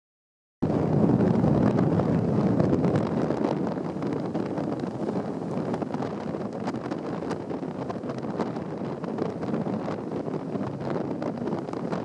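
Strong gale wind buffeting the microphone: a dense, low rushing rumble that is loudest for the first few seconds, then eases slightly but keeps blowing.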